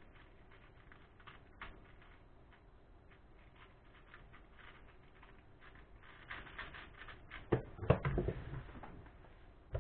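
Quick, light clicking of a YuSu 4x4 V2 magnetic speedcube's layers being turned, getting busier toward the end of the solve. Then a few loud knocks as the cube is set down on the desk and the timer on the laptop is stopped.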